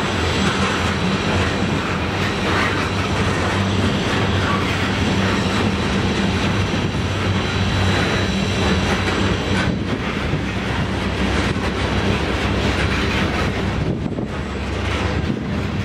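A loaded ore train rolling by in a steady rumble, its steel wheels clicking over the rail joints.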